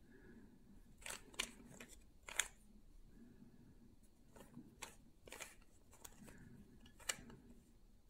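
Layers of a plastic 3x3 Rubik's Cube being turned by hand: about eight quick, light clacks at an uneven pace, the sharpest one a couple of seconds in and another near the end.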